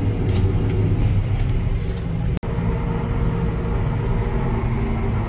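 A vehicle engine running steadily with a deep hum. The sound cuts out for an instant about two and a half seconds in.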